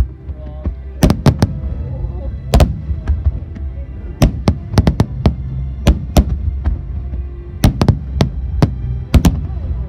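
Aerial firework shells bursting in quick succession: more than a dozen sharp, loud bangs, often two or three close together.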